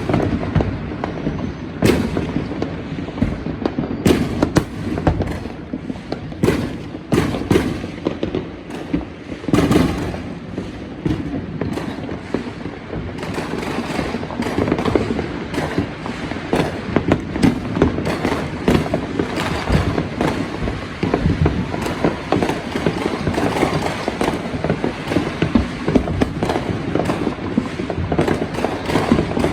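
Fireworks and firecrackers going off all around: loud separate bangs at first, turning into a dense run of crackling pops and bangs from about halfway through.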